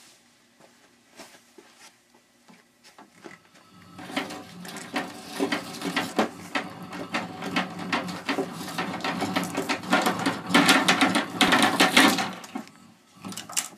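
Copper wire being pulled off a spool through a wire stripper's blade. There are a few faint clicks, then about four seconds in a dense, loud rattling and scraping begins and stops after about eight seconds. A short burst follows near the end.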